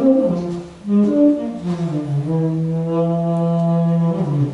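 A saxophone playing a phrase of short notes that slide up and down, then a long held low note from about two seconds in that bends downward near the end.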